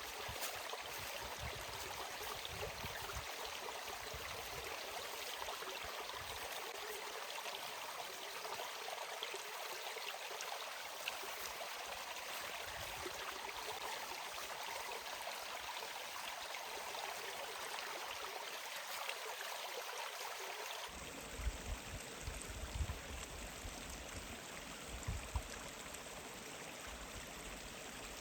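Mountain stream running steadily. About three quarters of the way through the sound changes abruptly, and a few low thumps and rumbles come in over the water.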